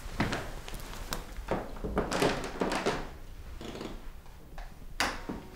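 Rustling and soft knocks of a man getting up from an armchair and moving about, with a sharp click about five seconds in.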